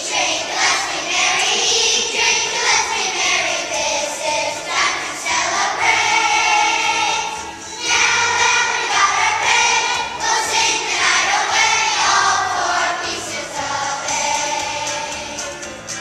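Children's choir singing a song together.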